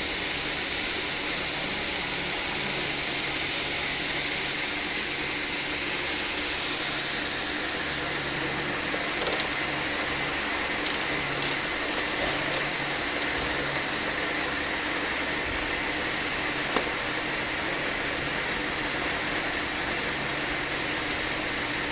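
Steady machine hum with a fan-like hiss, and a few light clicks of a screwdriver working screws out of a car's rooftop AC housing, most of them about halfway through.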